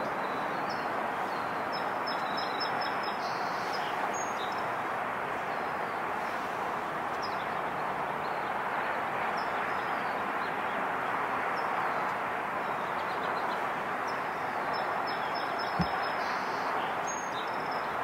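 Steady outdoor background noise with faint, high chirps of small birds in two short spells, and a single click about sixteen seconds in.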